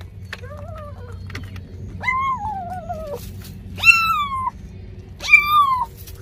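Young kitten meowing four times, high calls that each rise quickly and slide down in pitch: a faint short one at the start, a long drawn-out one about two seconds in, and two louder ones near the end.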